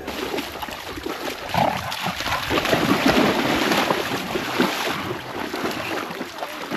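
Dogs running and splashing through shallow lake water.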